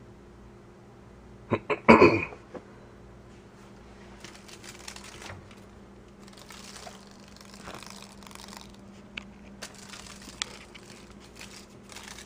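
A cat batting at a grounded dragonfly on a tile floor: a short, loud flurry of clicks and rattling about two seconds in, then scattered crinkly rustles and light taps of wings and paws on the tile.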